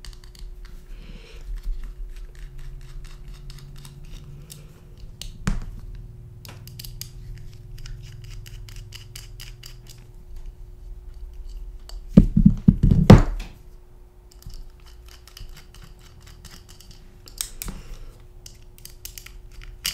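Small screwdriver turning little screws out of a PCB holder's foot bar: faint scratchy ticks and clicks of the driver in the screw heads. A few louder knocks come past the middle as the parts are handled.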